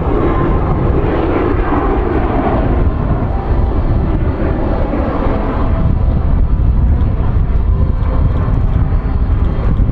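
Canadair CT-114 Tutor jets' turbojet engines in flight, a loud, continuous jet noise with a heavy low rumble.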